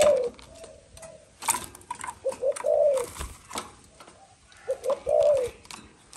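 Spotted dove cooing in its cage. It repeats a phrase of two short coos and a longer drawn-out coo about every two and a half seconds, in the voice keepers call 'thổ', loud with sparse 'kèm' notes. A few sharp clicks fall between the phrases.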